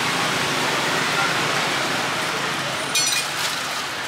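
Busy street-market ambience: a steady wash of noise, with a short clatter of sharp clicks about three seconds in.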